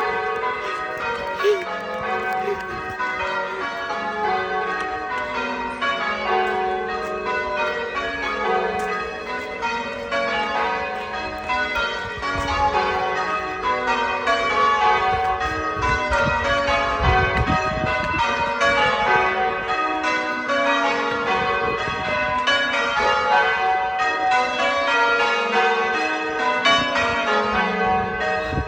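Church bells ringing a peal, many bells struck one after another in quick succession with their tones overlapping. A low rumble comes in partway through.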